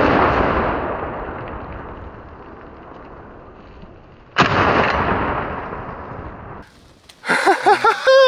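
Two shotgun blasts at close range: the first just before the start, its echo rolling away over about four seconds, the second about four and a half seconds in, fired at a tom running off. Near the end come a few short rising-and-falling calls.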